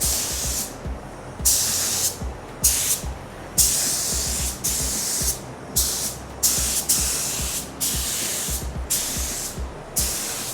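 Automotive paint spray gun hissing in about a dozen short bursts of under a second each, starting and stopping sharply, over background music.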